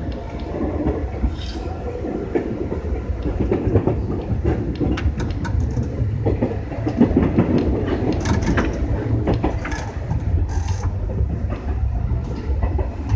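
201 series electric train running into a station, heard from inside the driver's cab: a steady low running rumble with irregular sharp clicks as the wheels pass over rail joints and points.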